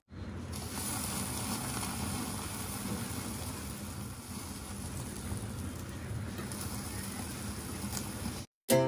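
Steady hiss of a gas stove burner's open flame, with marinated chicken sizzling on a wire grill rack directly over it. It cuts off suddenly near the end.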